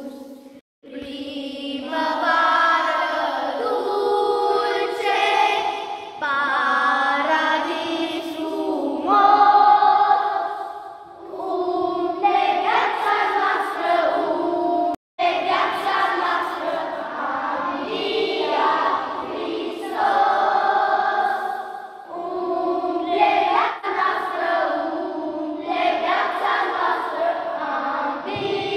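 Children's choir singing a Romanian religious hymn in long held phrases, with short breaths between lines. The sound cuts out completely for a moment about halfway through.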